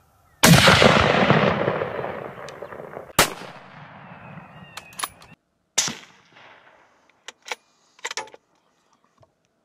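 A rifle shot about half a second in, its report rolling away in a long echo that fades over two to three seconds. Further sharp cracks follow about three and six seconds in, with a few faint clicks later.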